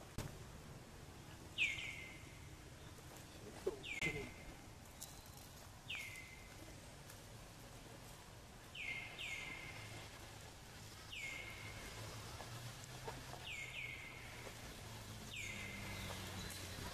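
A bird calling over and over: short, high, down-slurred notes, one every second or two, sometimes in quick pairs, faint against the outdoor background.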